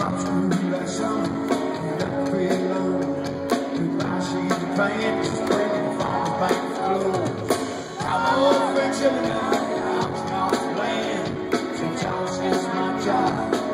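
Live rock band playing, with electric guitars, drums and a male lead vocal singing, recorded on a phone from the audience.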